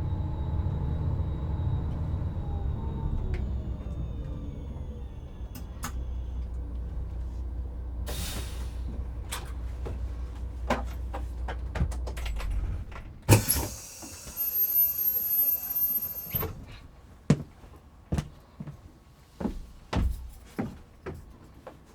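Bus engine running and slowing down, with a short hiss about eight seconds in. About thirteen seconds in the engine sound stops and a loud pneumatic hiss of about three seconds follows, typical of the air brake or door air release. A series of separate clunks and knocks then follows as the bus door opens.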